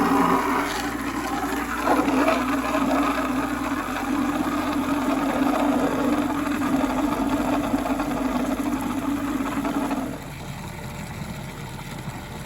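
A motor running steadily with a strong, even hum, cutting off about ten seconds in.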